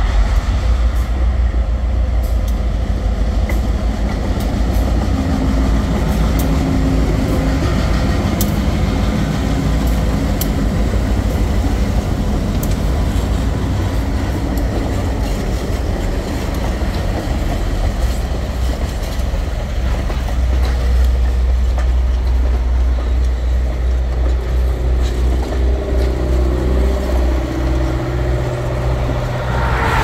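Diesel locomotives passing at close range under power, their engines running with a heavy low rumble. About halfway through, the passenger cars they pull take over, their steel wheels rolling steadily along the rails.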